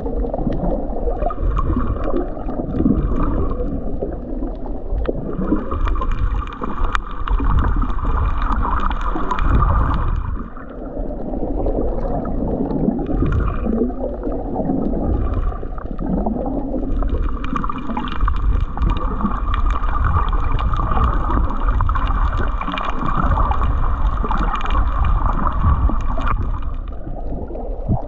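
Underwater sound of a diver's breathing bubbles: long stretches of bubbling and gurgling over a steady low rumble, with two short lulls.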